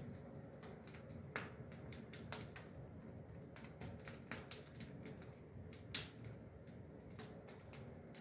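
Fire catching in a cast-iron fireplace firebox, crackling with irregular sharp snaps and pops, the loudest about a second and a half in and again about six seconds in.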